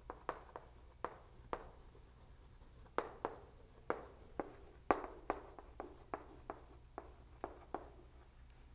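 Chalk writing on a blackboard: a string of short, irregular taps and scratches as the letters are drawn, with a brief pause between words.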